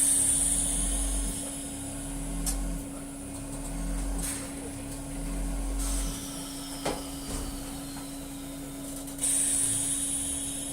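Machinery running in a dairy barn: a steady hum with a low pulse about every second and a half, several sharp clicks, and a faint falling whistle about two-thirds of the way through.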